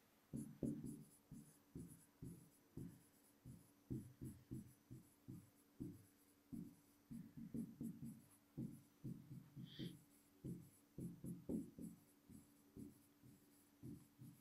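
Faint stylus strokes on an interactive whiteboard screen: a rapid, uneven run of short, dull taps and scrapes as a line of handwriting is written.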